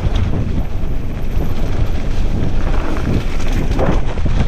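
Wind buffeting the microphone of a camera on a mountain bike riding fast down a dirt singletrack, over a steady rumble of tyres on the trail, with scattered clicks and knocks from the bike over bumps.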